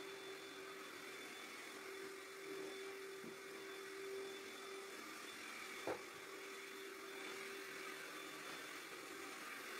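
Cordless stick vacuum cleaner running steadily, its handheld motor unit worked low over the floor. A single sharp knock about six seconds in.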